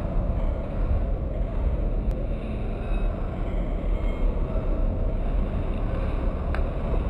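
A steady low rumble, with a faint click about two seconds in.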